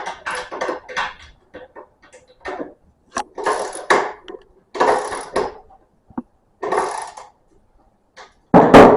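Hand tools and small engine parts clinking and scraping during reassembly of a small engine, a run of irregular knocks and rattles with a louder clatter near the end.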